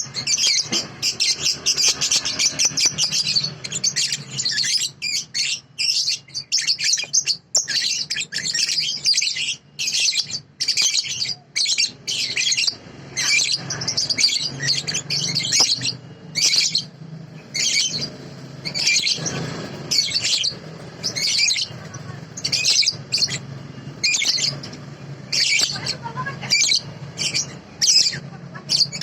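Young cage songbird singing in rapid, high chirping phrases that come in bursts with short pauses, kept as a training song for other birds.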